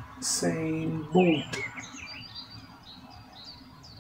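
Small birds chirping in the background, with short high falling chirps several times a second. A voice says a two-syllable word about half a second in.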